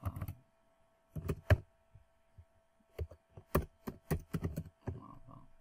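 Computer keyboard keys pressed in short, irregular bursts as a word is typed, with pauses of up to about a second between bursts. A faint steady hum runs underneath.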